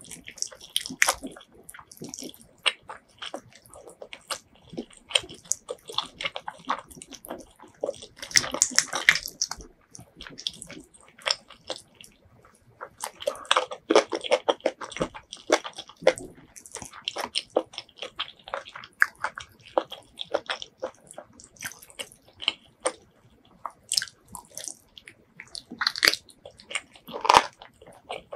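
Wet, close-up eating sounds: chewing and biting curried chicken, with sticky squishes from curry-coated fingers working meat and rice. The sounds come in busy clusters of rapid small clicks and smacks, with short quieter gaps between.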